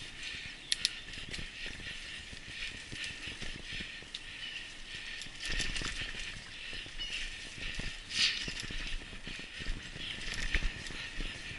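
Mountain bike rolling over a dirt singletrack, heard from a camera on the bike: a steady rattle with frequent clicks and sharper knocks over bumps, and a low rumble joining in about five and a half seconds in.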